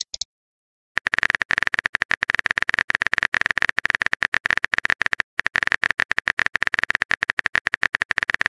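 Phone-keyboard typing sound effect: a fast, steady stream of sharp clicks that starts about a second in, with a brief pause a little past the middle.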